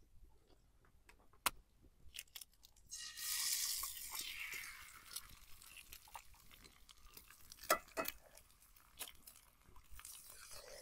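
Eggs being cracked on a skillet with sharp taps, one about a second and a half in and two more near the end. The first egg hits the hot pan about three seconds in and sizzles, the sizzle fading over a couple of seconds.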